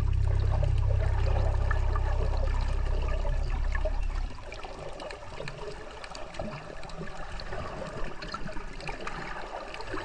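Water sounds: a steady hiss full of fine clicks and crackles, over a low steady hum that drops away about four seconds in.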